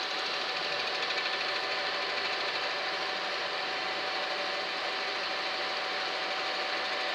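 Coordinate boring machine running steadily as its spindle-mounted cutter machines the welded main-bearing cap seats of a Hyundai Sonata 2.4 cylinder block. The sound is an even machining noise with a constant whining tone.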